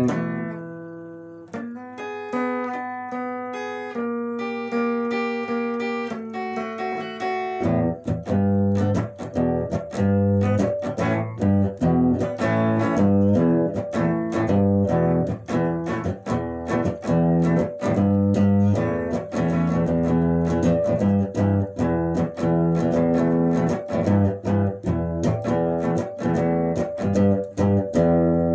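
Telecaster-style electric guitar played on its own: held chords and notes left ringing at first, then from about eight seconds in a driving rhythm riff of fast, even, repeated strokes.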